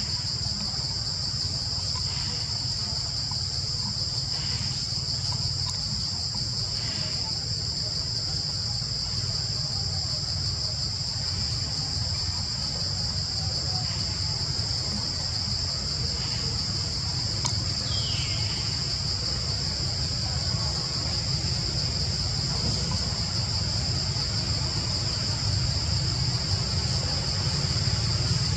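Steady, high-pitched drone of an insect chorus over a constant low rumble, with a few faint short calls and one brief falling call about two-thirds of the way through.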